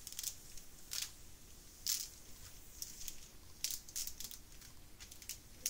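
Clear plastic cover film on a diamond-painting canvas crinkling in short, irregular rustles as hands press and smooth the canvas flat.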